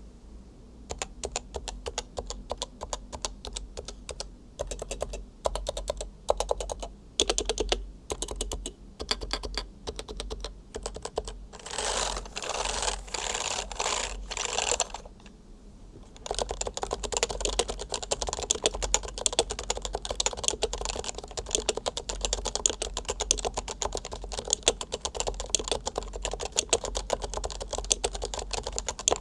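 Typing on a Leopold FC660C keyboard with Topre electro-capacitive switches, all 45 g. It starts as short runs of keystrokes with gaps between them, builds to a dense, rapid flurry about halfway through, pauses briefly, then settles into steady fast typing.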